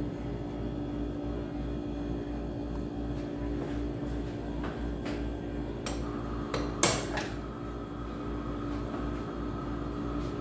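A long-neck gas lighter clicking as it lights a gas stove burner: several clicks between about five and seven seconds in, the sharpest near seven seconds, over a steady low hum.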